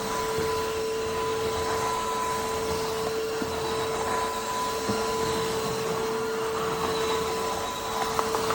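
Tineco cordless wet-dry vacuum mop running steadily while being pushed back and forth over a hard floor: a constant motor hum with a steady whine, and a few light clicks near the end.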